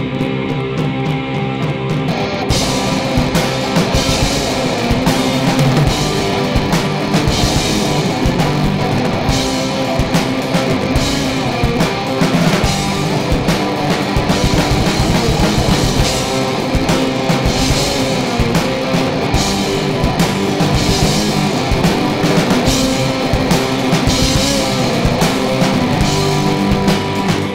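Live rock band playing an instrumental passage: guitar chords, with the full drum kit coming in about two seconds in and keeping a steady beat with cymbals.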